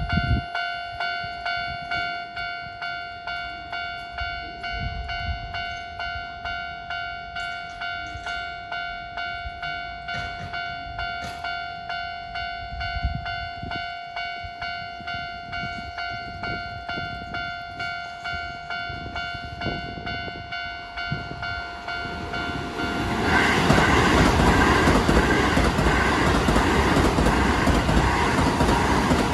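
Japanese railway level-crossing alarm ringing, one pitched tone repeating about twice a second. About 23 s in, a Keio Line electric train passes through the crossing, its wheel and track noise louder than the alarm, which keeps ringing underneath.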